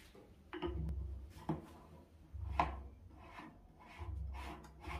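Plastic sealing cap being pushed and twisted onto the unused outlet of a plastic sink drain fitting: a series of rubbing, scraping strokes of plastic on plastic, about one a second, with dull handling knocks.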